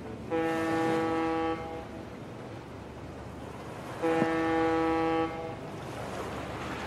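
Ship's horn sounding two long blasts, each a little over a second, about four seconds apart.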